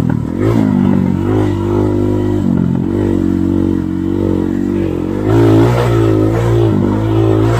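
Dirt bike engine under way, heard from on board: the revs drop and climb again over and over as the throttle is worked, getting a little louder about five seconds in.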